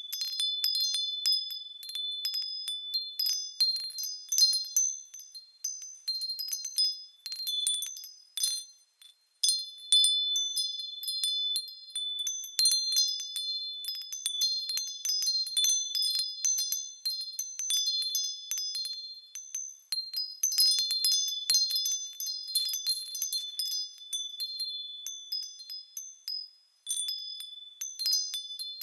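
Small high-pitched bells swinging and ringing in a continuous jangle of many light, overlapping strikes. It drops briefly to silence about nine seconds in and again near the end.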